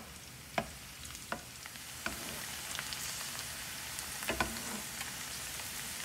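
Chopped garlic frying in oil: a steady sizzle that grows louder about two seconds in. A few sharp clicks come through it as a metal slotted spoon stirs the garlic against the pan.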